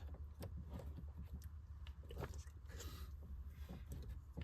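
Faint, irregular small clicks and scrapes of a 4 mm Allen key socket working the bolts of a short shifter, over a low steady hum.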